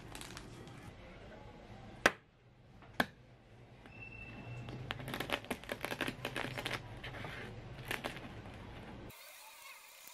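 A boiled egg knocked twice on a tabletop to crack its shell, then rolled under the palm, the shell crackling in a quick run of small clicks for a few seconds.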